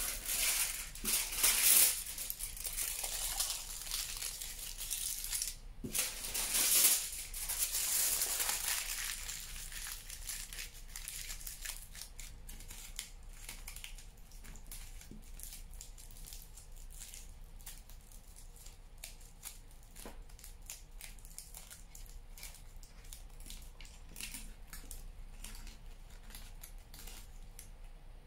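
Aluminium foil being crumpled and squeezed by hand around a wire armature: loud, dense crinkling for the first eight or nine seconds, then quieter, scattered crackles as the foil is pressed into shape.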